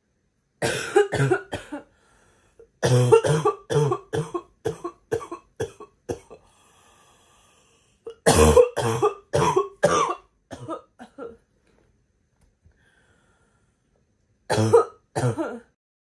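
A girl's harsh barking cough in rapid fits: a short burst of about four coughs, then two long runs of about ten coughs each that trail off into weaker coughs, and finally a pair of coughs near the end.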